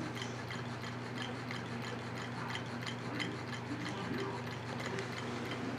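Low-temperature-difference Stirling engine running on dry ice and hot water, its flywheel turning with a light, regular clicking from the mechanism, over a steady low hum.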